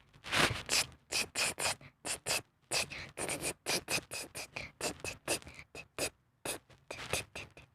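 A home-made spray sound effect: a rapid run of short hissing strokes, about three or four a second.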